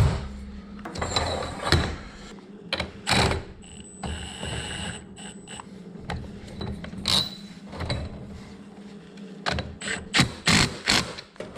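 Irregular mechanical clicks and knocks from work on garage door spring hardware, with a quick cluster of sharp knocks near the end.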